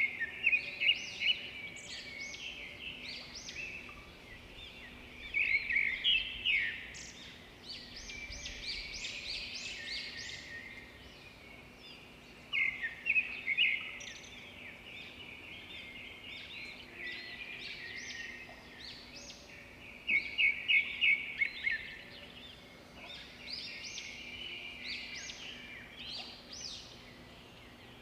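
Birdsong: birds chirping and trilling throughout, with a loud burst of rapid chirps recurring every several seconds over a softer chorus of calls, and a faint steady low hum beneath.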